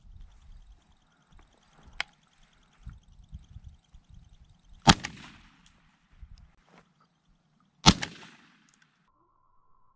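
Two shots from a Benelli Montefeltro 20-gauge semi-automatic shotgun, about three seconds apart, each trailing off in a short echo. The gun ejects a spent shell after the second shot.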